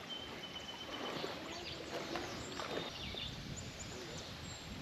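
Quiet outdoor ambience: a steady faint hiss with a few faint, high, short chirps scattered through it.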